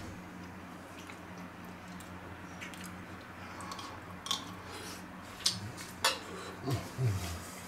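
A person eating stew: a metal spoon clicking a few times against the plate and quiet chewing, with a short low hum of a voice near the end, over a steady low background hum.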